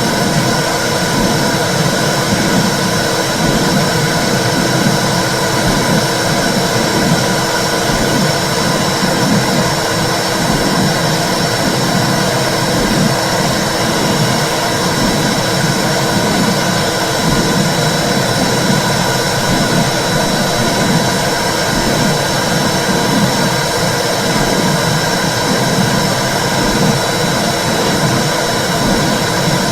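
Womb sound for soothing a baby: a loud, steady whooshing rush with a rhythmic low pulsing beneath it.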